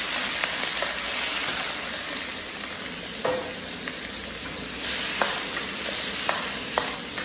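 Large prawns sizzling in hot oil as they are stir-fried in a pan, a steady hiss with a few sharp knocks as they are stirred.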